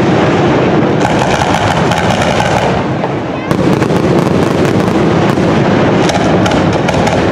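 Fireworks display: aerial shells bursting in a dense, continuous barrage, thick with rapid crackling.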